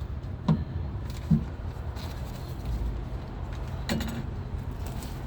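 Three short knocks and clicks of parts being handled and fitted into a car door during reassembly, over a steady low rumble.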